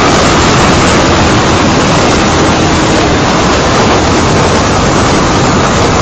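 Steady, loud wind rush buffeting the microphone of a Honda CBR125 motorcycle riding at road speed, with the bike's engine drone faint beneath it.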